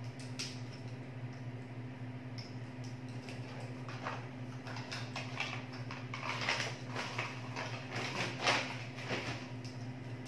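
A jump rope and its packaging being handled and untangled: scattered rustles and light clicks, busiest in the second half, over a steady low hum.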